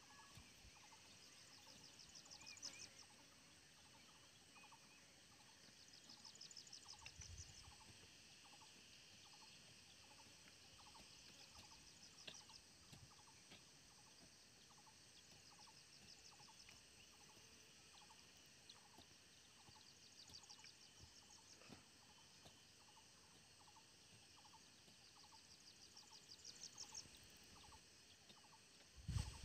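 Near silence: faint outdoor ambience with a soft, regular chirp a little more than once a second, and four short, rapid, high-pitched trills.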